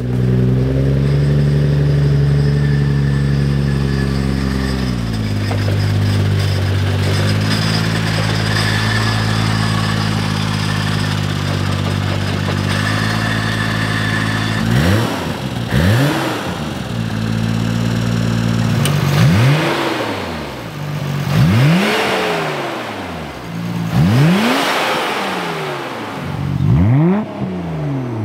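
Nissan Skyline GT-R R32's twin-turbo RB26 straight-six, built to about 650 horsepower, idling, the idle stepping down lower about five seconds in. From about halfway it is revved in a series of quick throttle blips, each rising sharply and falling back.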